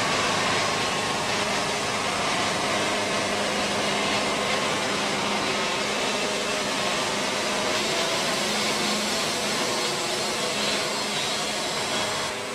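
Wood-Mizer LT70 band sawmill making a cut through a poplar log: the engine and band blade run with a steady, even sawing noise that lets up slightly near the end.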